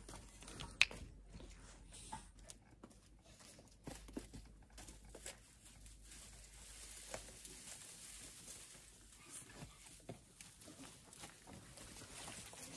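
Dry brushwood and grass rustling and crackling as it is picked up and gathered by hand, in scattered small snaps, with one sharp click about a second in. A faint steady hiss comes in about halfway through.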